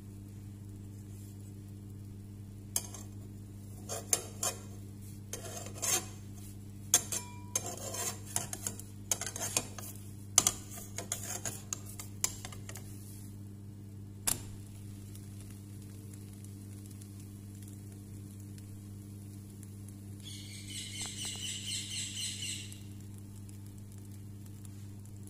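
A spatula clicks, taps and scrapes irregularly against a nonstick frying pan as a pancake is loosened and flipped, over a steady low hum. A brief, high, pulsing sound lasts about two seconds later on.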